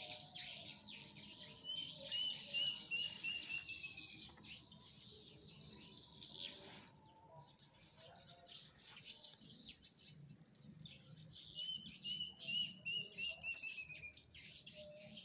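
Swiftlets twittering in a dense, continuous run of high chirps as the flock circles a swiftlet house. A short falling run of clear chirps is heard twice.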